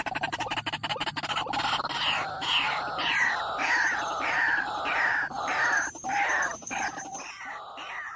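White-breasted waterhen (ruak-ruak) calling: a loud run of repeated calls, about two a second, each sliding down in pitch, fading near the end.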